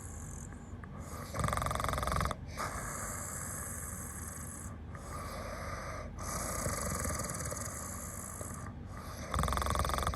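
A person snoring heavily in long, slow, rasping breaths, each a couple of seconds or more, with short breaks between them.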